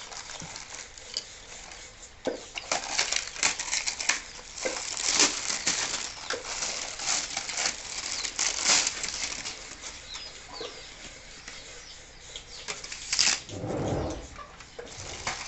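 Plastic film wrapping crinkling and rustling in quick crackles as ceiling fan blades are pulled out of it, with a dull thump about 14 seconds in.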